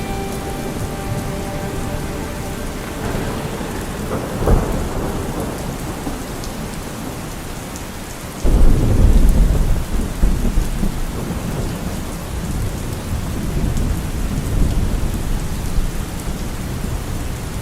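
Steady rain falling, with thunder: a sharp clap about four and a half seconds in, then a loud, low rumble that breaks in about halfway and slowly rolls away.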